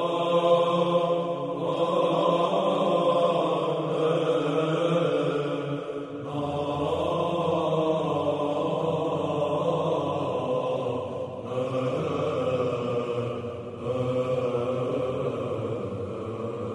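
Church chanting as a musical interlude: long held sung notes in phrases of a few seconds over a steady low drone note.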